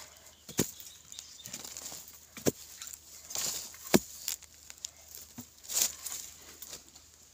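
Hand digging tool chopping into dry, hard, clumpy soil: sharp thuds about half a second, two and a half and four seconds in, with scraping and crumbling clods between, as the ground around a wild yam tuber is broken up.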